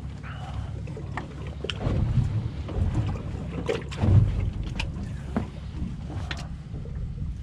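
A fluke being handled on a fibreglass boat deck while it is unhooked: scattered short knocks, taps and rustles of the towel and fish, with a louder thump about four seconds in, over a steady low rumble.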